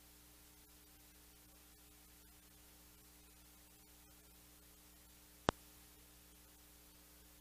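Near silence with a low, steady hum, broken by a single sharp click about five and a half seconds in.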